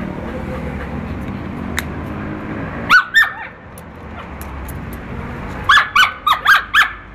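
A dog yipping in short, high calls: two yips about three seconds in, then a quick run of five near the end.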